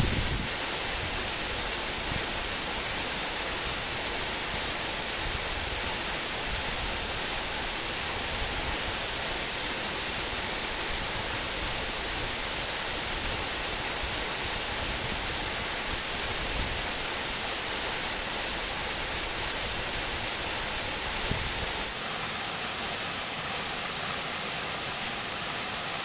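Tropical forest waterfall pouring down a rock face, a steady rush of falling water; the deep rumble thins a little near the end.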